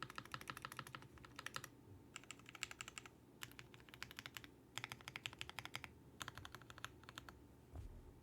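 Typing on a Vega 65% mechanical keyboard with lubed and filmed Alpaca linear switches and GMK keycaps: fast runs of keystrokes in several bursts with short pauses between them. The typing stops about a second before the end.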